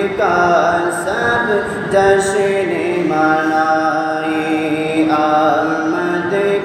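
A man singing a naat, an Islamic devotional song praising the Prophet, in long held notes that glide from one pitch to the next.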